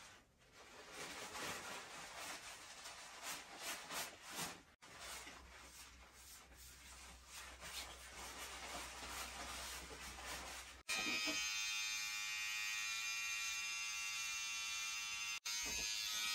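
Electric hair clippers running with a steady buzz, starting abruptly about two-thirds of the way through. Before that, soft rustling and handling noises.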